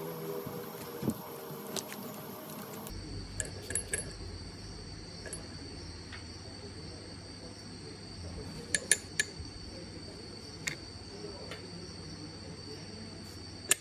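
A steady high-pitched drone like insects calling, broken by sharp clinks: a few about four seconds in, a quick cluster near nine seconds and a loud one near the end.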